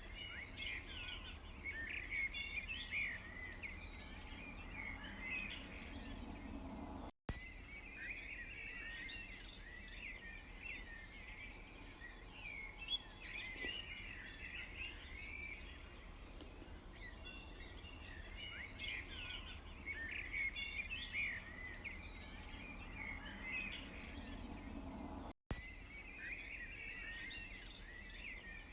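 Many small songbirds chirping and twittering at once, dense overlapping short calls, over a low steady background rumble. The sound cuts out for an instant twice, about a quarter and nine-tenths of the way through.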